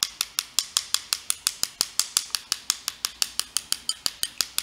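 Two paintbrushes knocked together in a fast, even rhythm, about seven sharp taps a second. The taps flick drops of watercolour off the loaded brush onto paper to make a splatter.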